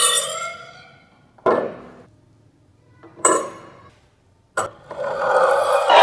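Polished steel scissors set down and handled on a wooden tabletop: a knock, then a clink with a short metallic ring, then a sharp click. A longer rushing noise swells up near the end.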